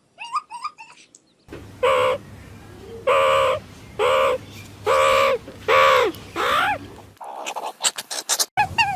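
A bird calling: five or six loud, drawn-out calls about a second apart, each dropping in pitch at its end, after a few short chirps.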